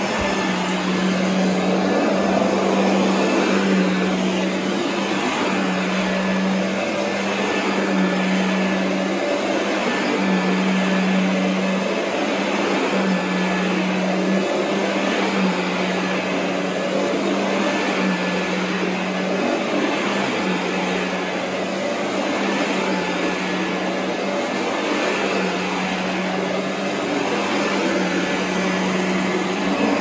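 Royal commercial upright vacuum with a cloth bag running over carpet: a steady whir of motor and brush roll. A low hum comes and goes every second or so as the vacuum is pushed back and forth.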